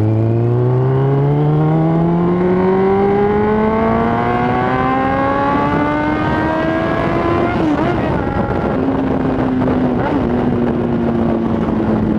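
Suzuki GSX750F inline-four with a full, muffler-less exhaust, accelerating, heard from on board. Its pitch climbs steadily for about seven seconds, then falls and holds at a steadier, lower note, with a brief dip a couple of seconds later.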